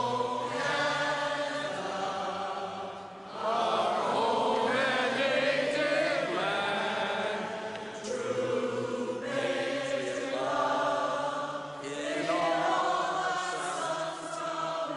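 A large group of voices singing a slow song together, in long phrases of held notes with brief breaks between them.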